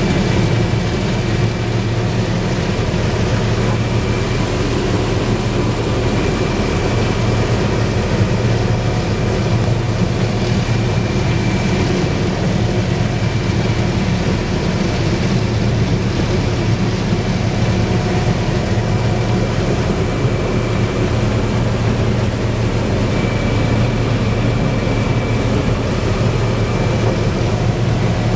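Combine harvester working through standing maize, heard from inside the cab: a steady, unbroken low drone of the engine and threshing machinery, with a faint thin whine high above it.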